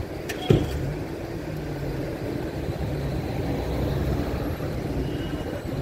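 A vehicle's engine running with a steady low rumble, with a sharp knock about half a second in.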